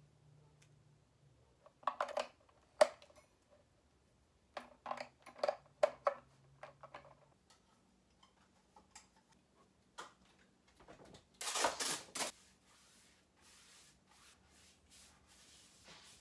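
Scattered knocks and taps of a cardboard sheet being handled against a wall, then one loud ripping tear of tape pulled off the roll, followed by a few softer hissing strokes.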